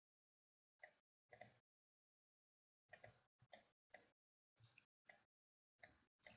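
Faint, irregular clicks from a computer mouse and keyboard, about a dozen short clicks with dead silence between them.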